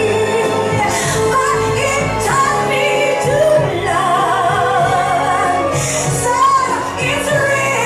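Pop music with a woman singing, her held notes wavering with vibrato over a steady band accompaniment.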